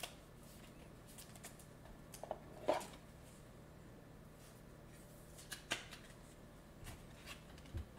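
Trading cards and clear plastic card holders being handled: a few short, soft clicks and rustles scattered over a faint steady hum.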